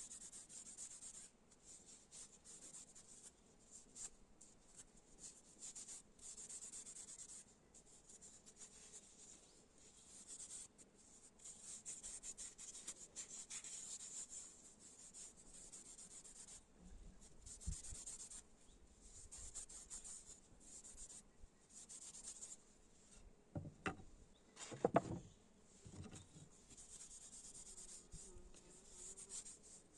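Faint repeated abrasive rubbing strokes, worked by hand against the knife, going on in irregular runs. A few dull knocks come about three quarters of the way through.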